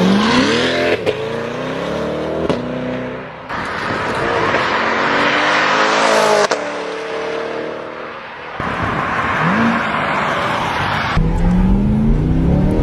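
C8 Corvette's V8 accelerating hard, its pitch climbing and dropping back several times as it revs through the gears and passes by. Near the end a deeper, heavier rumble is heard from inside the cabin.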